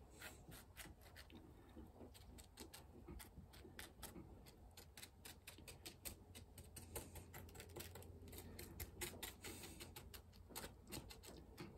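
Faint, irregular ticking and clicking of fine gravel-like scatter grains being pushed around with a fingertip on a glued diorama base, a little busier in the second half.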